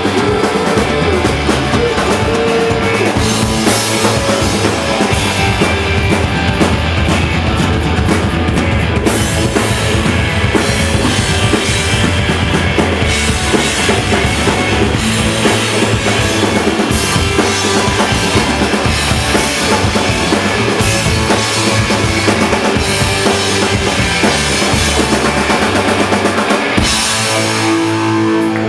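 Live rock band playing an instrumental passage with no vocals, the drum kit to the fore with kick drum and snare driving the beat. The bottom end drops out briefly near the end.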